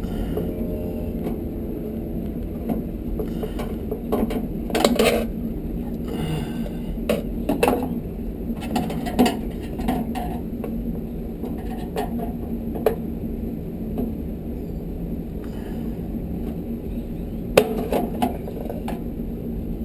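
Screwdriver clicking and clinking against the sheet-metal housing of a tankless water heater as screws are worked loose, in scattered bursts over a steady low hum.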